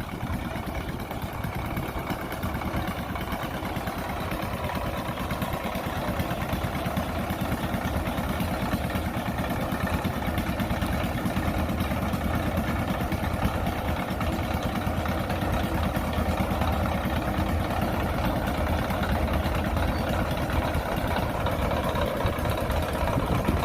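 Heavy diesel engine running steadily, getting slightly louder over the stretch.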